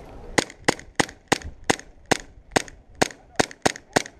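Airsoft pistol firing a quick string of single shots, about eleven sharp cracks at roughly three a second.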